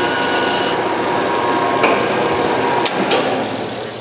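Forrest Model 236 vertical bandsaw with a scallop-edge blade running with a steady machine hum, with three sharp clicks in the second half. The hum fades over the last second.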